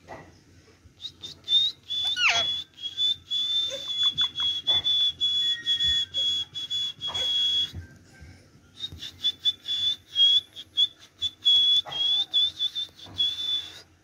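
Ring-necked parakeet giving a long, high, shrill whistle that is broken into short pieces, with a sharp falling swoop about two seconds in. After a brief pause near the middle, a second run of whistling follows.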